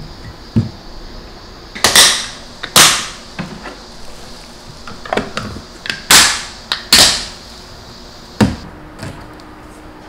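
Snap-lock lid clips being pressed shut on glass food storage containers: a series of sharp plastic snaps, four of them loud, with lighter clicks and taps between.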